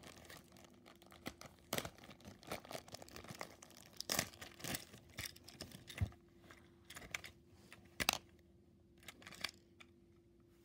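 Thin plastic packaging bag crinkling and tearing as it is pulled off a toy train engine by hand: irregular crackles with a few sharper clicks, thinning out near the end.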